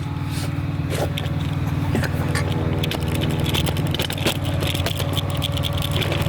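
An engine idling steadily with a low hum, with scattered clicks and light scrapes of metal brake parts being handled.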